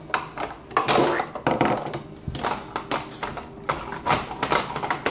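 Hard plastic toy pieces knocking and clattering against each other and a plastic playset as a child handles them: a run of irregular taps and thunks.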